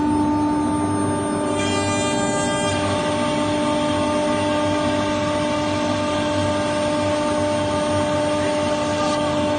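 CNC router's 3.2 kW electric spindle running at a steady pitch, a constant whine, with a brief higher ringing about two seconds in.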